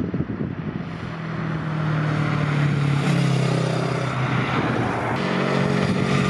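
Motorcycle engine running at a steady road speed, a low drone that builds over the first second or two, with wind noise over it.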